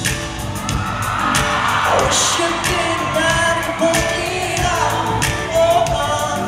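Male lead vocalist singing a contemporary R&B pop song live, holding long notes over a full band with drums.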